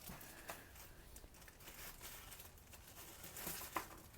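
Faint rustling and small clicks from hands sorting through small parts such as washers and a gasket, with a slightly louder cluster of clicks about three and a half seconds in.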